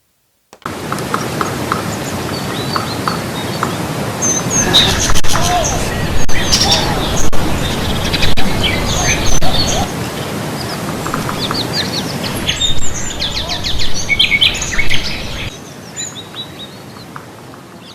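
Many small birds chirping and trilling in quick, overlapping calls over a steady rushing background noise. The background drops somewhat near the end.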